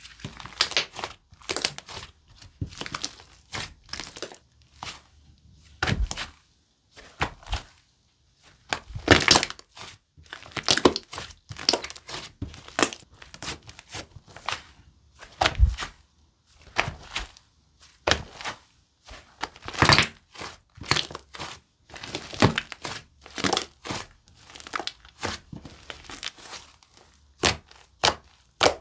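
Hands squishing, stretching and poking a clear slime mixed with clay, giving irregular runs of sharp crackling pops and clicks with brief pauses between them.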